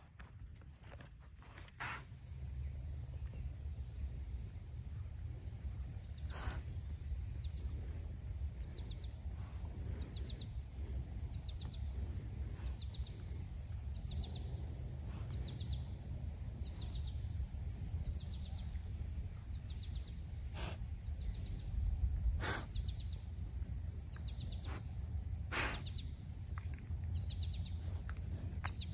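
Summer outdoor ambience: a steady high insect drone with a short chirp repeating about once a second, over a low rumble, broken by a few sharp clicks.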